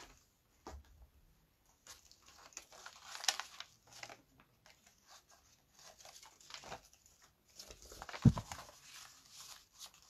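Handling noise from a phone being moved and set in place: irregular rustling and scraping with scattered light clicks, and a heavier knock about eight seconds in.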